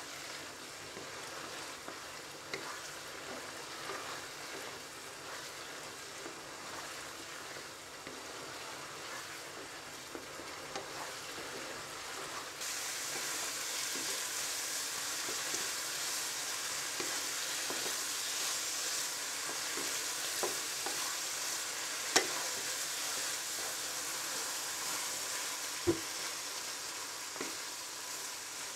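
Minced meat in tomato puree sizzling in a non-stick frying pan as a wooden spatula stirs and scrapes it, cooking off the liquid. The sizzle gets louder about halfway through, with a couple of sharp clicks from the spatula against the pan.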